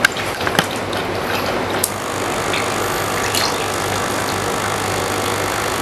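Homemade coffee maker prototype running with a steady electrical hum and hiss, with a few sharp clicks in the first two seconds.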